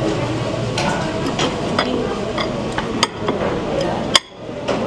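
A metal spoon clinking against a ceramic soup bowl and dishes, several scattered sharp clinks, over the steady chatter of a busy dining room. The sharpest clink comes near the end, and the background drops away briefly after it.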